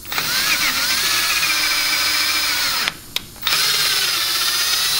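Power drill spinning a thread tap through bolt holes in an engine block, cleaning out the threads. It runs in two goes with a short stop about three seconds in, its whine rising as it spins up.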